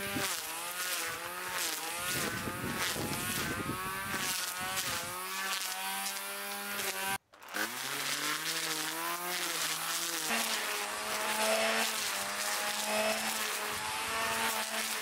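Corded electric string trimmer running as it cuts long grass, its motor whine wavering in pitch as the line bites into the grass and frees up again. The sound drops out for a moment about seven seconds in.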